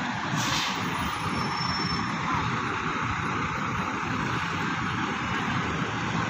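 Diesel coach engines running steadily as buses manoeuvre on a quay, an even, unbroken engine and outdoor noise.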